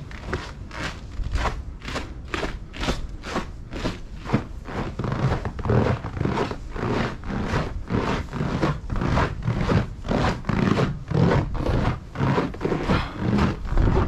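Footsteps crunching on snow in a steady walking rhythm, about two steps a second.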